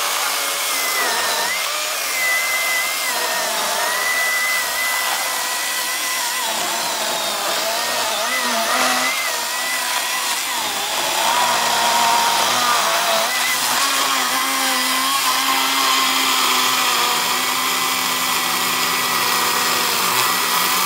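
Milwaukee M18 Fuel brushless cordless chainsaw running at full speed and cutting through a thick log: a steady, loud electric whine of motor and chain whose pitch wavers and dips as the chain bites under load.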